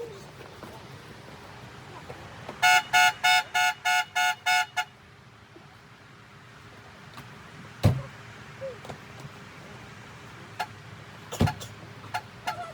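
A horn beeping about eight short times in quick succession, then two sharp knocks a few seconds apart.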